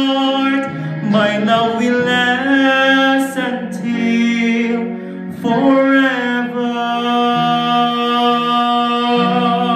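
Man singing a solo ballad with instrumental backing, holding long sustained notes.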